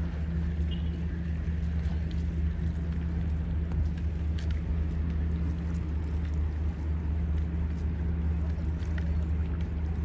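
Boat engine running with a steady low hum.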